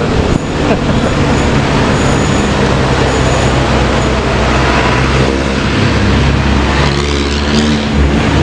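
A motor vehicle engine running in road traffic, heard over dense road noise. Its pitch shifts about halfway through and again near the end.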